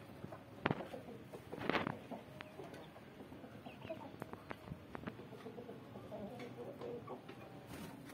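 Chickens clucking softly in their cages, short calls scattered throughout. A sharp knock comes in the first second and a brief scrape just before two seconds in, and these are the loudest sounds.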